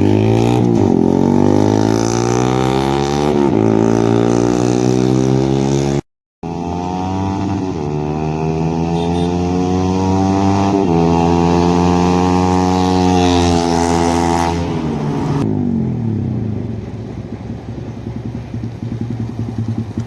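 Yamaha MT-15's single-cylinder engine running through an aftermarket SC Project silencer, revved up and held at several engine speeds, its pitch rising and falling, then dropping back to idle near the end. The sound breaks off briefly about six seconds in.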